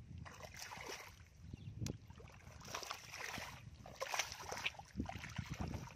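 Bare feet wading through shallow muddy water, sloshing and squelching in uneven steps, with one sharp click about two seconds in.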